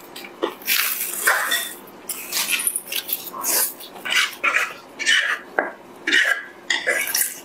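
A person slurping spicy fire-chicken instant noodles: a run of loud, wet slurps, a dozen or so short pulls with brief pauses between.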